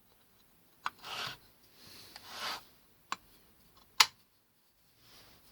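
Small metal workpieces handled on a bench: a few sharp clicks, the loudest about four seconds in, and two short rubbing scrapes.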